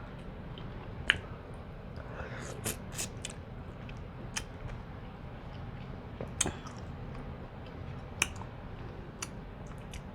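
Close-miked chewing and mouth smacking while eating corn on the cob, with scattered sharp wet clicks several seconds apart.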